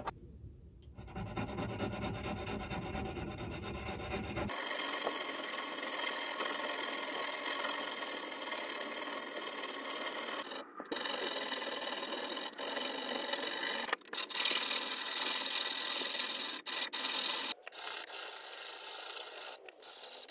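Flat hand file rasping over a brass sprinkler hose nozzle from a 1930s Rain King, in repeated strokes with a few brief breaks.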